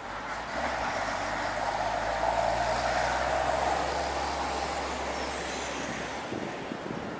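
A road vehicle passing nearby: a low steady engine hum with tyre and road noise that swells in, is loudest a couple of seconds in, then fades away.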